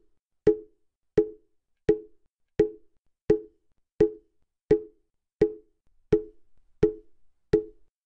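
Mokugyo, the Buddhist wooden fish drum, struck at a slow, perfectly even pace: about eleven knocks, roughly three every two seconds, each dying away quickly.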